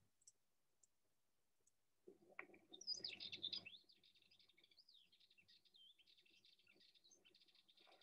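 Sardinian warbler's chittering call: a faint, quick, scratchy chatter that starts about two seconds in and is loudest for under two seconds, then trails on more faintly.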